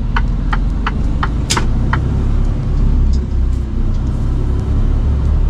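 Mercedes-Benz Actros truck's diesel engine running, heard from inside the cab, with the turn-signal indicator clicking about three times a second for the first two seconds and then stopping.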